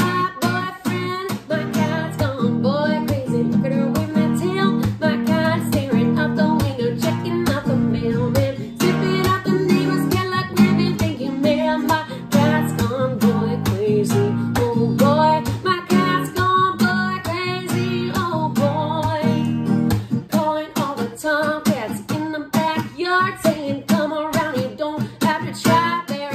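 A woman singing with her own strummed acoustic guitar accompaniment, the strums falling in a steady rhythm under the vocal line.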